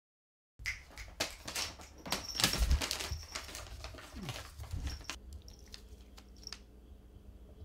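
Kitten pawing at and pouncing on a crumpled sheet of paper on a wooden floor: rapid paper crinkling and scratching clicks, busiest in the first few seconds, then thinning to a few scattered crinkles.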